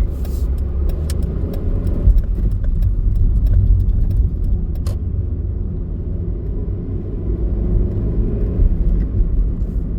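A car on the move, with a steady low rumble of road and engine noise. A few light clicks sound near the start and about halfway through.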